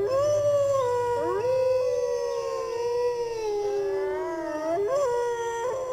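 Wolves howling in chorus: long, drawn-out howls that slide slowly in pitch, with more than one voice overlapping.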